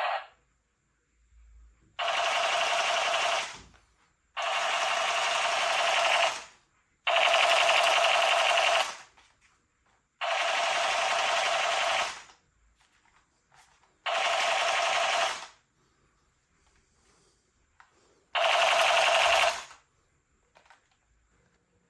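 Battery-powered toy gun's motor-driven mechanism running in six bursts of about one and a half to two seconds each, a fast mechanical buzz.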